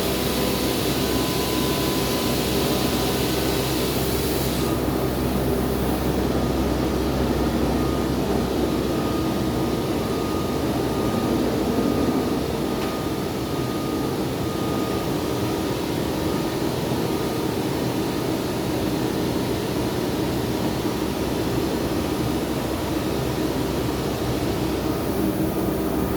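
CNC router workshop machinery running steadily: a dense machine hum with a couple of steady whining tones. The higher hiss drops away about five seconds in and returns near the end.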